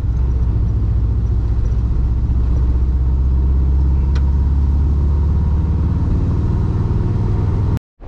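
Volkswagen Kombi van's engine and road noise while cruising on a highway, a steady low drone at a nearly constant pitch that cuts off abruptly near the end.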